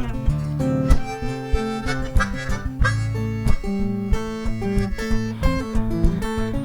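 One-man-band instrumental break: harmonica played over strummed acoustic guitar, with regular percussive hits keeping the beat.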